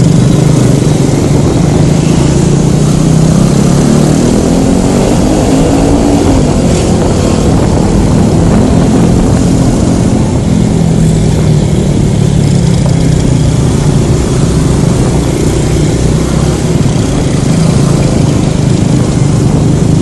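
Scooter engine running under way, heard through a phone taped to the rider's helmet, over a loud steady rumble of wind and road noise. The engine pitch rises a few seconds in as it speeds up, then holds fairly steady.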